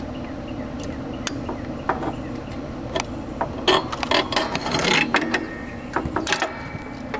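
Metal clicks, clanks and scraping from tools and steel parts being worked by hand while fitting the spring assist back onto a Sears ST16 garden tractor, with a busy cluster of clatter about four to five seconds in.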